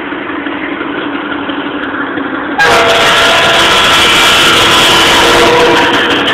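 GE U20C diesel-electric locomotive approaching at low speed, its diesel engine running with a steady hum of tones. The sound turns abruptly louder and brighter about two and a half seconds in.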